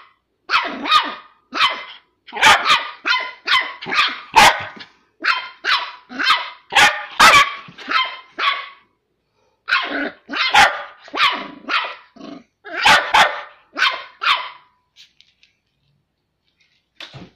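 A 10-week-old smooth fox terrier puppy barking over and over in short, high-pitched barks, about two a second, with a brief pause a little past halfway; the barking stops a few seconds before the end.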